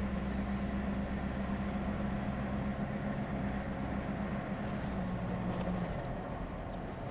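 A vehicle on the move, heard from inside the cabin: a steady engine drone over road noise. The drone eases about six seconds in.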